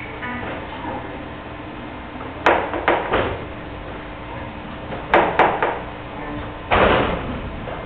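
Sharp knocks in three groups: two or three quick ones about two and a half seconds in, three more about five seconds in, and a heavier thump near the end, over a steady low hum.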